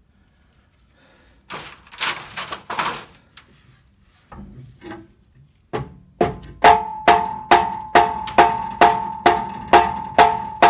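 Hammer blows on a classic Mini's exhaust pipe from underneath the car, knocking the pipe loose for removal: a few duller knocks and scrapes, then from about six seconds in a steady run of sharp, ringing metallic strikes about two a second.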